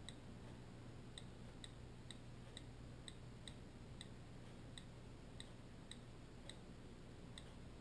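Faint iPhone on-screen keyboard clicks, one per key tap, coming unevenly about two a second as a search phrase is typed, over a low steady hum.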